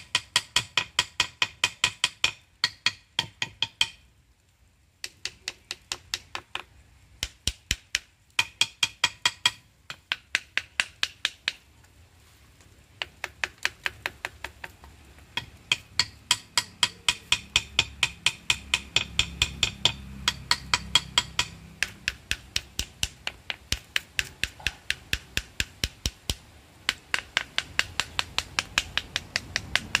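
A knife tapped repeatedly against a wooden stingless bee hive box: sharp taps several a second, in runs broken by short pauses. The tapping drives the bees out through the hive entrance into a bottle before the hive is split.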